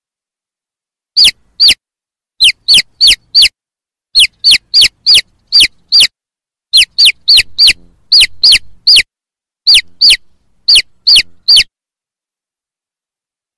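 Domestic chicken chick peeping: a long series of short, high peeps, each falling in pitch, in quick runs of two to five. The peeps start about a second in and stop a couple of seconds before the end.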